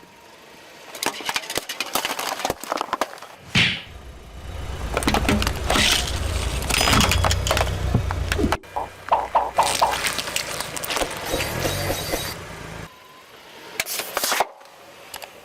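Objects cracking, snapping and breaking as a car crushes them, in several separate bouts. A low engine rumble runs under some of them.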